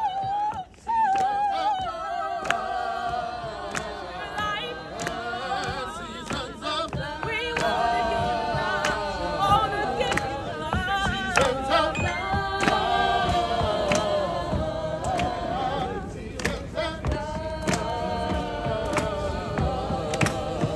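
Gospel choir of mixed men's and women's voices singing together over PA loudspeakers, with sharp percussive hits through the song. The sound breaks off briefly about a second in.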